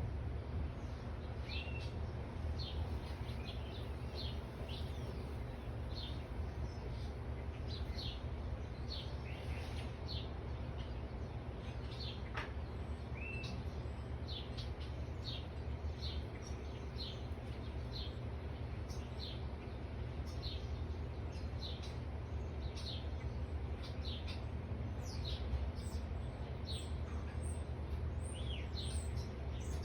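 Songbirds chirping: many short, high chirps that slide downward, repeated every second or so throughout, over a steady low rumble.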